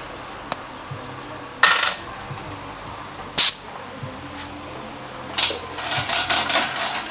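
Metal tools or parts clinking as they are handled and set down: two sharp clinks, then a run of rattling clatter near the end, over a steady workshop hum.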